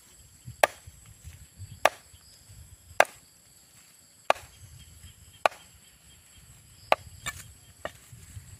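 Steady chopping with a blade on wood: about seven sharp strikes, roughly one every second or so.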